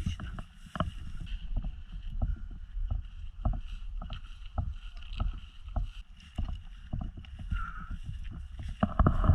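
Footsteps through tall grass at a walking pace, about two a second, each a soft thud with the rustle of stems brushing past.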